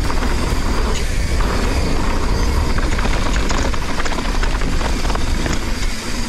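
Mountain bike descending a rough dirt trail, its tyres rolling over dirt and rocks and the bike rattling with many quick clicks and knocks, under a heavy low rumble of wind on the GoPro's microphone.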